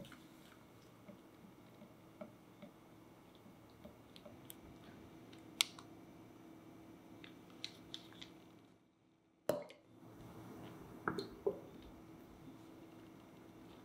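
Silicone whisk beating eggs and sugar in a glass bowl over a pan of warm water: faint squishy stirring with scattered light ticks against the glass. Past the middle the sound briefly drops out, followed by one sharp knock and a few more knocks of glass a second or two later.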